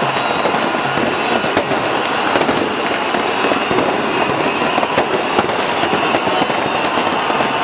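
Fireworks and firecrackers banging and crackling without pause over the steady din of a huge crowd celebrating.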